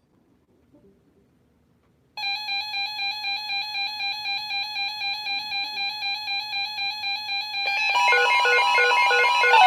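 Electronic alarm-like beeping tone that starts about two seconds in and pulses about three to four times a second. Near the end a second, louder layer of tones joins it.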